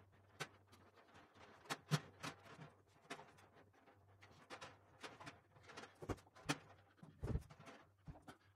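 Irregular clicks, taps and knocks of a snare drum and its metal stand being handled and set in place, with a few duller thumps about six to seven and a half seconds in. A faint steady hum runs underneath.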